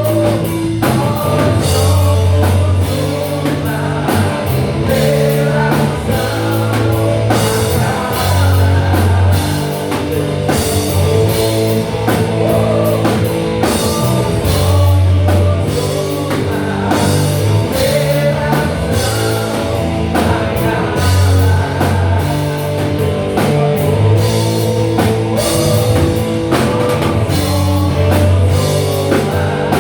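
Live rock band playing: drum kit, electric guitars and bass, with singing heard at times.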